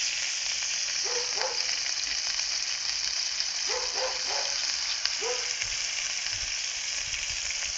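Rooster meat and freshly pounded garlic frying in oil in a pot over a wood fire: a steady sizzle as the garlic browns. A few short faint calls sound behind it.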